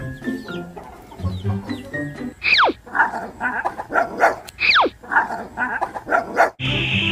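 Playful background music. About two and a half seconds in, and again a couple of seconds later, a quick whistle glides steeply down in pitch, and each glide is followed by a run of short, sharp repeated notes.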